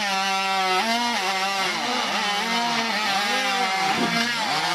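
Two-stroke gas chainsaw at full throttle cutting through a thick wooden beam. Its engine pitch dips under load and picks back up several times as the chain bites into the wood.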